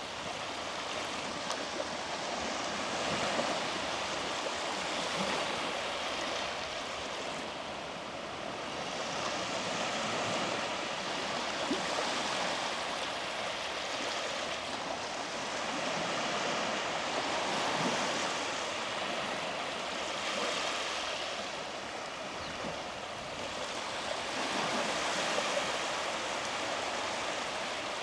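Small waves washing onto a beach: a steady surf hiss that swells as each wave breaks and eases as it draws back, every several seconds.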